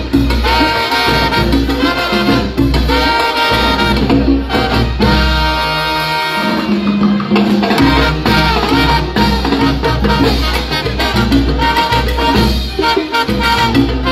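Brass band playing live: trumpets, trombones, saxophones and sousaphones in held chords over congas and a pulsing bass. The lowest bass drops out briefly about halfway through, then comes back in.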